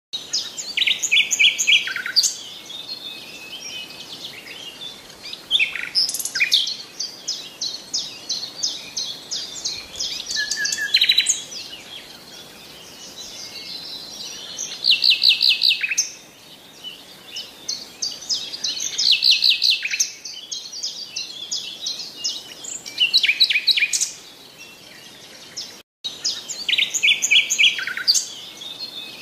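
Songbirds singing: repeated phrases of rapid, high chirps and trills. The sound cuts out for an instant about 26 seconds in, then the same kind of phrases start again.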